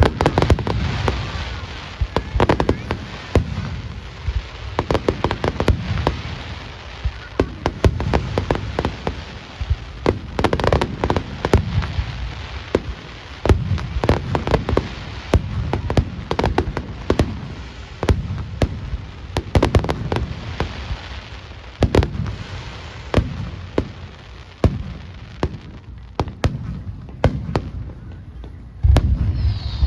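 Aerial fireworks display: shells bursting in rapid succession, deep booms mixed with many sharp cracks and crackling, with one especially heavy boom near the end.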